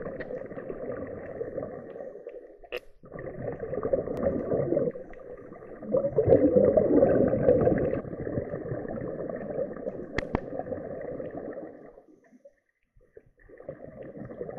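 Muffled underwater noise through a waterproof camera housing, with swells of bubbling from a scuba diver's exhaled breath; the loudest swells come about three and six seconds in, and the sound drops out briefly near the end.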